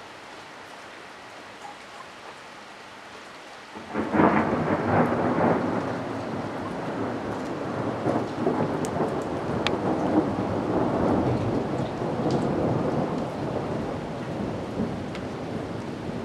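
Heavy rain falling with a steady hiss, then about four seconds in a loud thunderclap breaks in and rolls on, slowly easing off.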